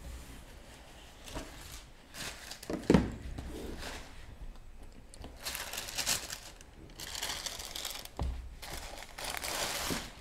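Shoebox tissue paper rustling and crinkling in repeated bursts as a sneaker is unwrapped and pulled out of a cardboard box, with a single thump about three seconds in.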